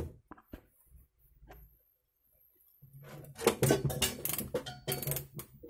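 Clicks and clatter of a plastic CCTV bullet camera housing being handled and closed up after repair, with a near-silent pause partway through.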